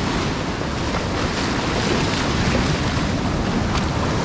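Surf washing up the beach at the water's edge: a steady rush of breaking waves and foam.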